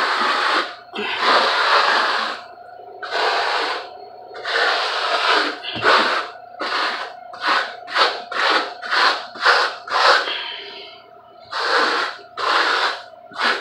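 Steel plastering trowel scraping and spreading plaster over fiberglass mesh on a wall, embedding the mesh as a base for Marmorino plaster. A few long swishing strokes, then a quick run of short strokes, two or three a second, a brief pause near the end, then more strokes.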